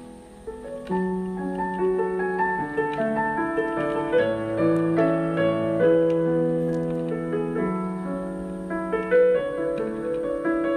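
Background music: a piano melody over chords, which swells about a second in as a new phrase begins.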